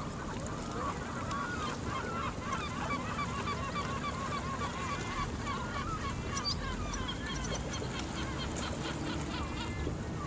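Gulls calling, a long run of rapid, repeated calls through the first half, then scattered higher calls, over a steady low rumble.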